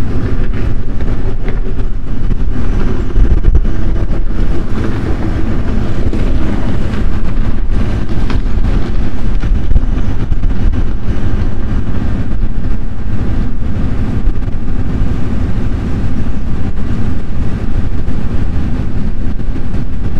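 Loud, steady low rumble of a riverboat's engine running while under way.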